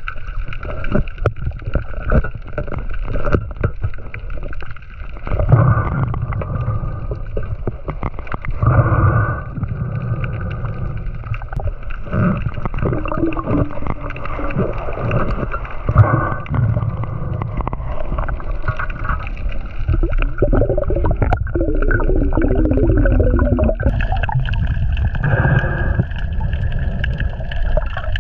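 Muffled underwater rumble and gurgling heard through a submerged camera, with scattered clicks and knocks as a speared fish and the speargun are handled; a sharper knock comes about halfway through, and a stretch of bubbly gurgling later on.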